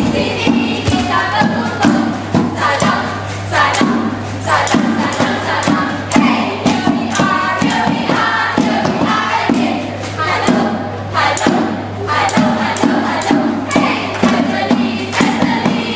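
A group of young voices singing or chanting together in unison, with a steady beat struck on a hand-held frame drum.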